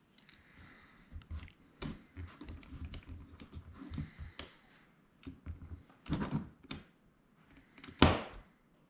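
Irregular taps, knocks and handling clatter of hand work at a drywall wall, with a louder single thunk about eight seconds in.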